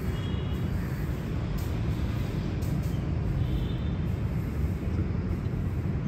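Steady low rumble of city traffic, with two brief high-pitched sounds, one near the start and one about three and a half seconds in.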